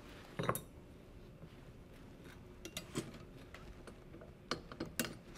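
Metal belt-fastener plates clinking as a strip of them is handled and set down, a louder clatter about half a second in followed by scattered light clicks.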